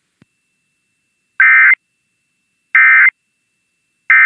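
Emergency Alert System end-of-message code: three short, identical bursts of buzzy two-tone digital data, about a second apart, the signal that closes an EAS test transmission.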